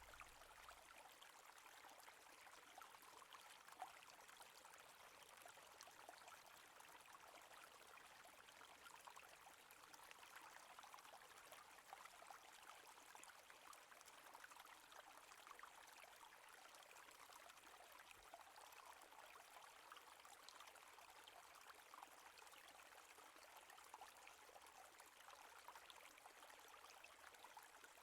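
Faint babbling stream: a steady, soft trickle of flowing water.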